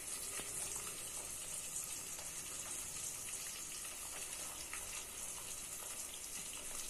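Faint wet squelching and sloshing of soaked tamarind being squeezed by hand in its soaking water in a steel bowl, dissolving the pulp, over a steady hiss.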